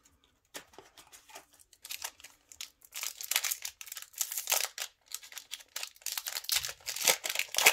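Foil Yu-Gi-Oh! Genesis Impact booster pack wrapper being torn open by hand, crinkling and crackling. It starts sparse and grows dense and louder from about three seconds in.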